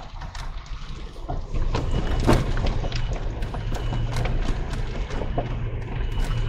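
Dacia Duster SUV driving over a rough off-road track: a low rumble of engine and tyres, with frequent knocks and clatter from stones and bumps. It gets louder about a second and a half in.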